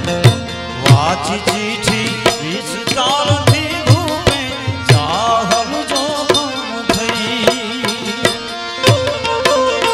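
Live bhajan music: tabla and dholak keep a steady beat under harmonium with a wavering, ornamented melody line.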